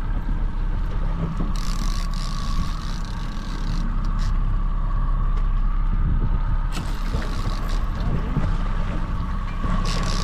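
Boat motor running steadily: a low rumble with a steady whine, with short bursts of hiss a couple of times.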